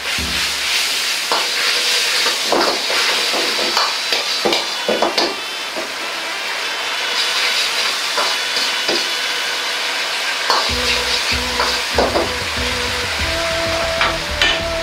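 Sauce sizzling in a wok while a metal ladle stirs it, knocking and scraping against the wok, as a starch-and-water slurry is worked in to thicken the sauce. Background music comes in about two-thirds of the way through.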